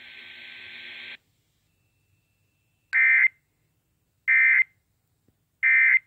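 Emergency Alert System end-of-message tones from an FM radio: three short, shrill digital data bursts about 1.3 s apart. They are the burst code that closes an alert broadcast, here a tornado warning. Before them, a steady hiss from the radio cuts off about a second in.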